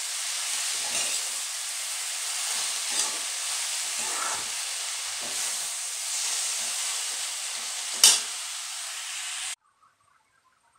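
Chopped spinach sizzling in hot oil in a metal kadhai as a metal spatula stirs and turns it, with irregular scraping strokes against the pan and a sharp clink about eight seconds in. The sizzle stops abruptly near the end.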